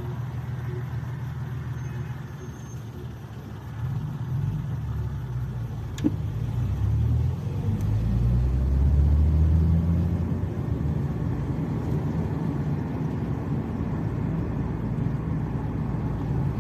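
Engine and road noise of a car heard from inside while it drives along: a steady low rumble whose engine hum rises and grows louder about eight seconds in. A single sharp click comes about six seconds in.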